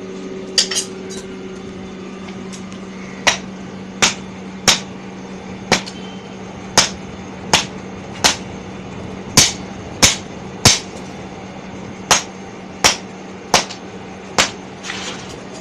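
Hammers striking a hot steel khukuri blade on an anvil during rough forging by hand: about sixteen sharp blows at an uneven pace, a little under one a second, over a steady low hum.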